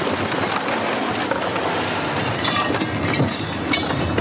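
Car crash after a rear-end stunt impact: the struck car flips over. There is a continuous noisy crashing and clattering of metal and debris, broken by several sharp knocks.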